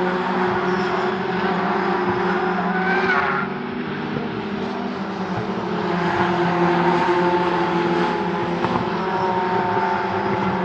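Racing car engines running at fairly steady revs, with a brief high squeal about three seconds in.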